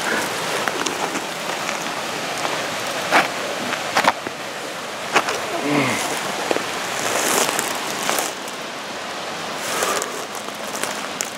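Steady rush of creek water by the falls, with scattered scrapes and knocks of a hiker climbing down rock and brushing through brush, and a brief vocal sound about six seconds in.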